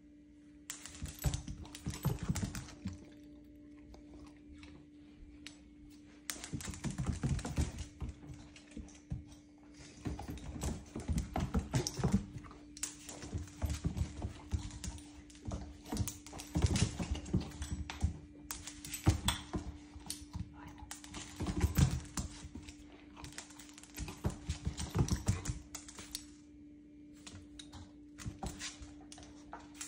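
Basset hound puppy's claws clicking and scrabbling on a hard floor as it runs and turns, in repeated bursts of rapid taps a few seconds long.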